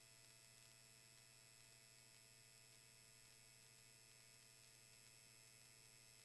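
Near silence: a faint, steady electrical hum with a few thin high whines, the noise floor of the aircraft intercom/radio audio feed with no one transmitting or talking.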